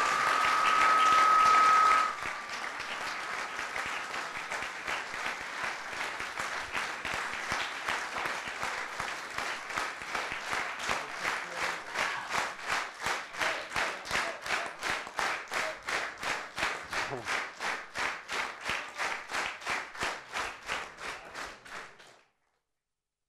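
Audience applauding, with a steady high tone over it for the first two seconds. The applause turns into rhythmic clapping in unison and cuts off suddenly near the end.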